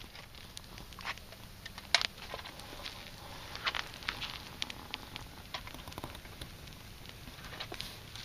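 Small twig fire crackling, with irregular sharp pops and snaps, the loudest about two seconds in.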